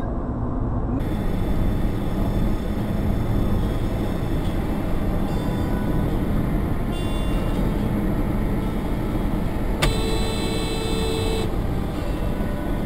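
Steady road and engine noise heard from inside a moving car through a dashcam microphone. About ten seconds in comes a sharp click, then a steady tone lasting about a second and a half.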